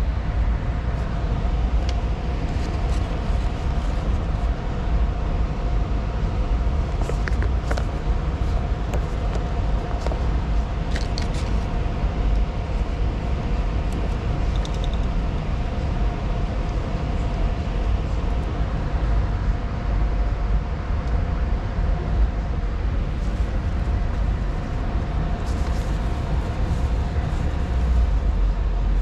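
Steady low rumble with a faint hum: the background noise of a large store, with a few light clicks about seven and eleven seconds in.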